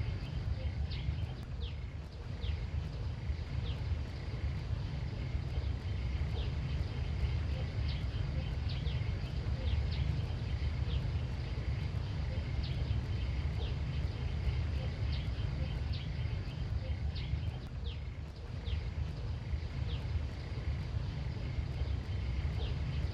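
Countryside ambience: a steady low rumble of wind on the microphone, with a faint steady insect drone and short high chirps scattered throughout.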